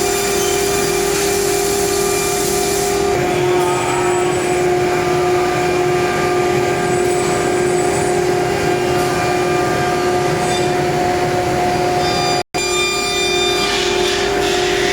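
CNC router spindle running with a steady high whine as it cuts through board, with a rough cutting noise underneath. The whine dips slightly in pitch about three seconds in, and the sound drops out for an instant near the end.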